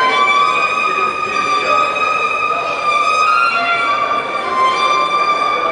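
Solo violin playing a slow melody of long held notes, changing pitch only a few times.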